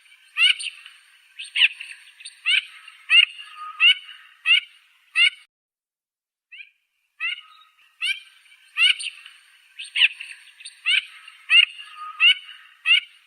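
A duck giving a series of short, high-pitched calls, each a quick sliding stroke, roughly one every two-thirds of a second. After a pause of a second or so midway, the same series repeats exactly, as a loop.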